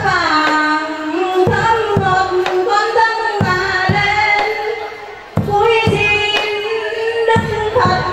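Vietnamese ceremonial music: a high voice sings a slow melody of long held notes that slide between pitches, over low drum beats.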